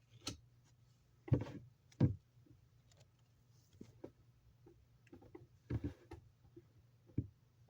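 Yu-Gi-Oh trading cards being handled and set down: a handful of short taps and brief rustles, spaced a second or more apart.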